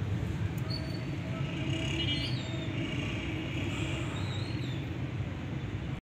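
Steady low outdoor rumble with a few faint high chirps and short whistling glides.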